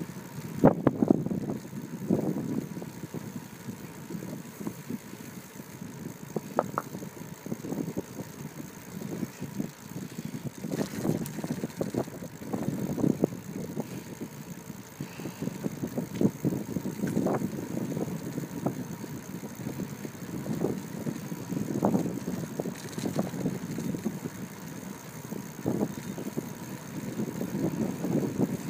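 Wind buffeting the microphone of a phone mounted on a moving bicycle, swelling and fading irregularly, with scattered clicks and rattles from the bike as it rolls over the paving.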